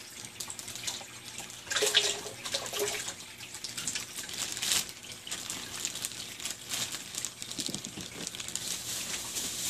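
Water splashing and pouring into an aquarium as feeder goldfish are tipped in. The loudest splash comes about two seconds in, followed by smaller splashes and drips.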